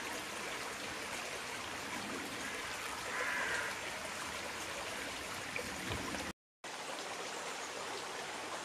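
Shallow stream running and trickling over stones, a steady babble of water. The sound cuts out for a moment a little past six seconds in, then picks up again.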